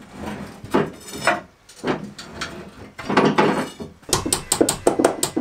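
A steel chisel levering a heavy wood lathe, about 220–250 kg, across a tiled floor: irregular scraping, clinking and knocking as the blade is pushed under the base and the machine is shifted a little at a time. About four seconds in, a quick, even run of sharp clicks follows, about seven a second.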